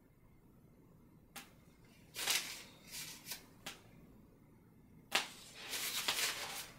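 Painting tools handled at an oil painter's palette, heard as a few sharp clicks and short, hissy scraping or rubbing strokes in two spells.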